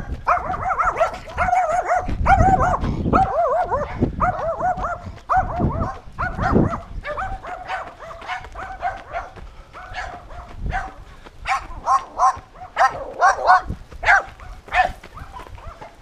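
A dog barking over and over: quick runs of short barks through the first seven seconds, then separate sharper barks spaced out toward the end.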